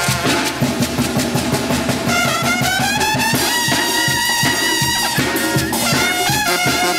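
Brass band music: trumpets and trombones over a steady drum beat. About two seconds in, a horn line slides up in pitch and then holds a high note.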